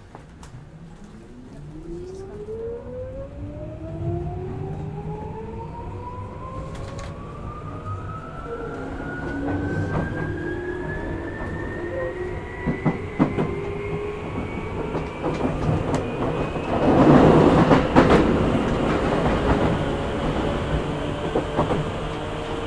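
Tokyu 8500 series electric train accelerating from a stop: its Hitachi traction motors whine, rising steadily in pitch, and the wheels click over rail joints. About 17 seconds in, a loud rushing rumble with knocks swells up, then eases off.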